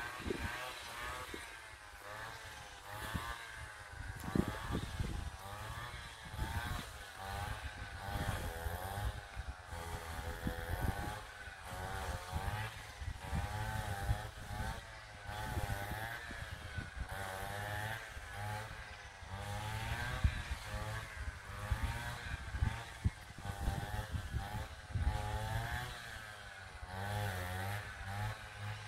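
Small engine running, its pitch swinging up and down about once a second as its load changes, with wind buffeting the microphone.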